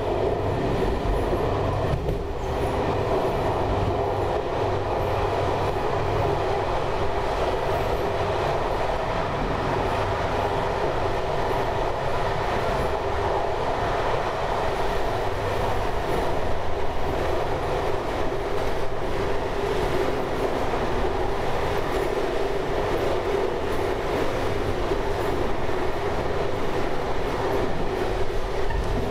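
Train running along the track at speed, heard from inside the cab: a steady rumble of wheels on rail with a constant hum through it and a few faint clicks.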